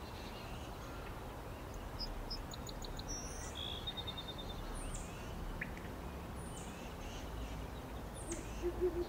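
Forest ambience: several birds chirping, with short high falling calls and a quick trill, over a steady low rumble. A low repeated call begins near the end.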